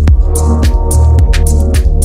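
Electronic dance music with a heavy, sustained bass line and a regular beat of hi-hat and percussion strokes over held pitched tones.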